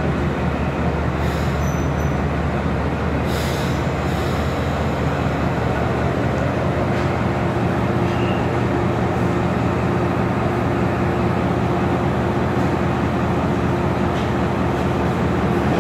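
D19E diesel-electric locomotive running as it creeps slowly along the station track, its engine a steady low drone. Two brief hisses come in the first few seconds, and a steady tone joins the drone about six seconds in.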